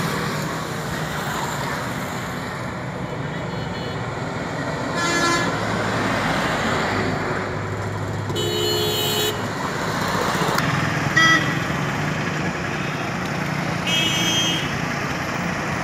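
Busy road traffic: vehicle engines running steadily, with several horn honks, a longer one about eight seconds in and the loudest, short one about eleven seconds in.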